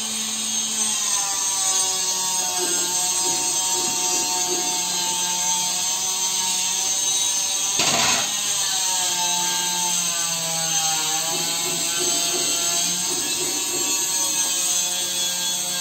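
A small motor humming steadily, its pitch wavering slowly, with one brief knock about eight seconds in.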